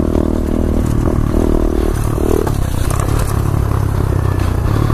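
A 2015 SSR 125cc pit bike's single-cylinder four-stroke engine running under throttle while riding. Its higher engine note drops away about two and a half seconds in, as the throttle eases.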